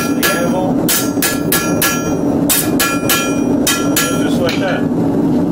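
Blacksmith's hand hammer striking a bar on a steel anvil, about a dozen blows in quick runs, each with a short metallic ring, over a steady low drone.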